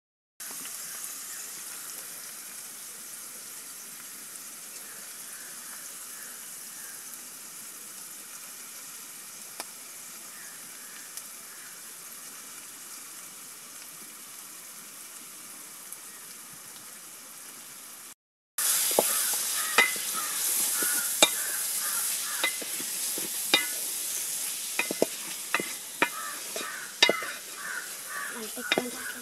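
Mushroom curry sizzling in oil in a steel pot. After a brief break it sizzles louder, with a spoon clicking and scraping against the pot as it is stirred.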